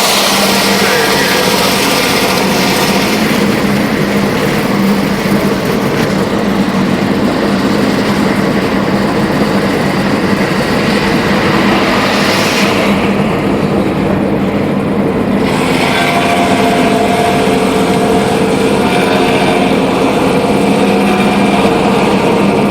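Intercity bus engine and exhaust running steadily at highway speed, a loud, even snoring exhaust note that holds one pitch throughout.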